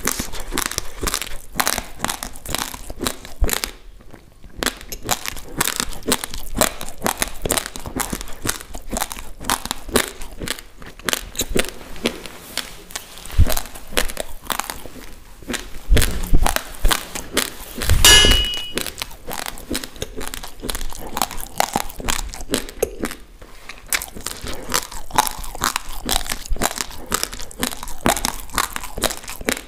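Close-up crunching of raw basmati rice grains being chewed, a fast, irregular stream of sharp crackles. A little past halfway there are a few louder thumps and rustles.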